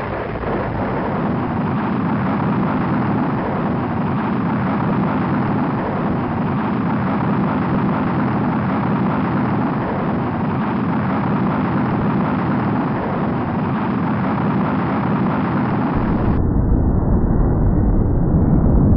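Rocket engine exhaust at launch: a loud, steady rushing rumble. About sixteen seconds in it turns duller and deeper.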